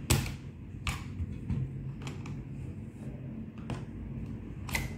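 Sharp clicks and taps of a screwdriver against the Tefal steam iron's plastic housing as it is pried apart, about half a dozen spread out, the loudest right at the start, over a steady low hum.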